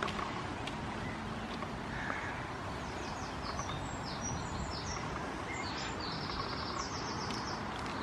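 Small birds chirping in quick runs of short high notes from about three seconds in, over a steady rush of outdoor noise.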